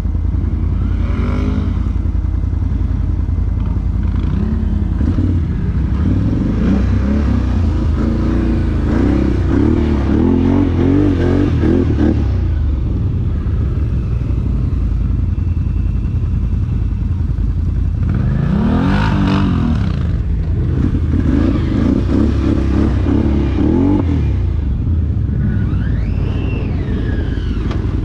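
ATV engine running under way over a steady low rumble, revving up and down in surges, loudest about a quarter of the way in and again past the middle.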